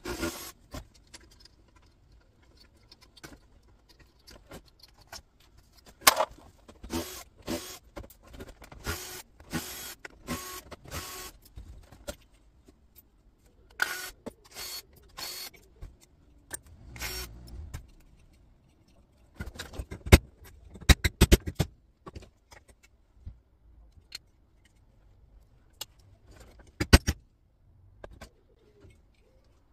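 Cordless drill-driver running in short bursts as screws are taken out of a plastic and metal monitor stand, among clattering and sharp knocks of the parts being handled and prised apart.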